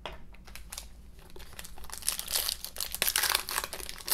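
Plastic wrapper of a Donruss football card pack crinkling as it is handled and torn open, louder and denser in the second half.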